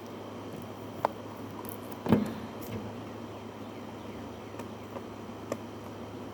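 Cardboard hockey card box being worked open by hand: a few sharp clicks and taps, with a louder knock and rustle about two seconds in, over a steady low hum.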